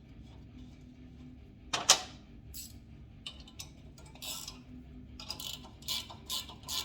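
Metal clutch parts clinking as the spring retainer plate and a homemade compressor bolt and nut are fitted: one sharp clank about two seconds in, then a run of light metallic clicks, about two or three a second, near the end.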